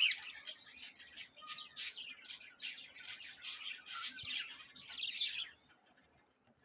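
Many caged budgerigars chirping together, a dense run of quick high chirps that dies down about five and a half seconds in.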